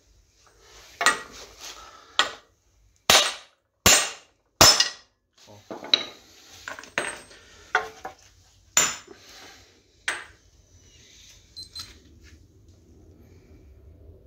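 Sharp metallic knocks and clanks, about ten in all, the loudest three evenly spaced a little under a second apart: steel tools and hammer striking the freed front wheel hub. They stop after about ten seconds.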